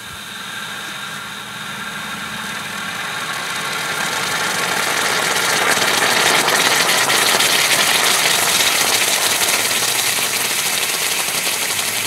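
Water boiling against hot cast aluminum ingots quenched in a mold cavity, a sizzling, bubbling boil. It builds over the first six seconds or so and eases a little near the end. This is the Leidenfrost vapor layer around the hot metal collapsing, so the water boils properly.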